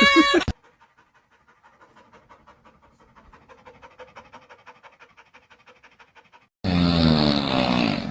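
A wavering pitched tone cuts off half a second in, followed by about six seconds of faint, rapid, breathy panting. Near the end a loud pitched sound with gliding tones breaks in suddenly.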